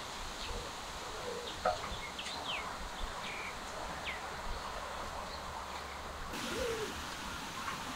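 Outdoor background noise with scattered short bird chirps, several quick downward-sliding notes. The steady hiss turns brighter about six seconds in.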